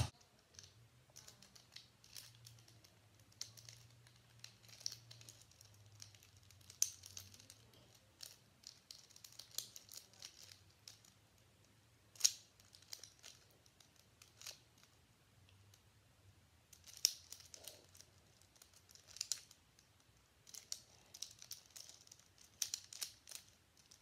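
Plastic Rubik's cube being turned by hand during a solve: faint clicking and rattling of the turning layers in irregular flurries, with short pauses between runs of moves.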